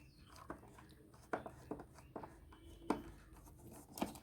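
Light clicks and knocks of a screwdriver and hands working at a mini tower speaker's casing, as its screws are undone to open it. The sharp taps come irregularly, about six of them, half a second to a second apart.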